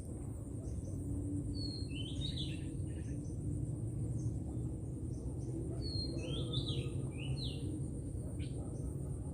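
A songbird sings two short chirping phrases, about four seconds apart, over a steady low outdoor rumble.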